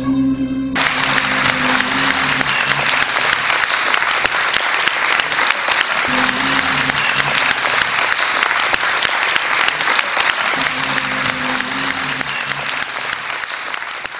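A concert audience applauding, breaking out loudly just under a second in as the final held note of the türkü, voice and instruments together, ends. The clapping stays dense and steady throughout.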